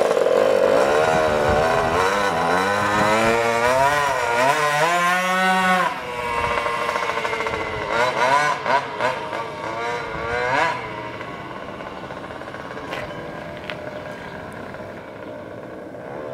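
36cc Rovan two-stroke scooter engine with a tuned pipe and silencer, revving up and down as the GoPed pulls away. A few sharp throttle blips come around 8 to 11 seconds in, then the sound fades as it rides off.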